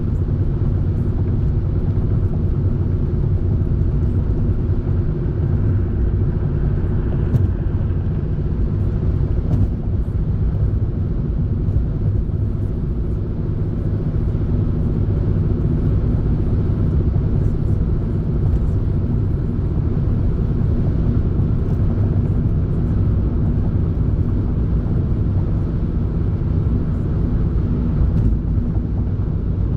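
Steady low rumble of a vehicle driving, engine hum and road noise.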